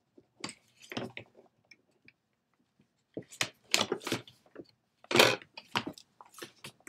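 A sheet of paper rustling as it is picked up and handled on a desk, in a string of short irregular bursts, the loudest about five seconds in.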